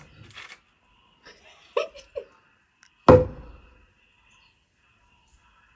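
A large wooden log drum is struck once with a wooden mallet about three seconds in. It gives a deep, hollow thud with a short ringing tone that dies away within a second.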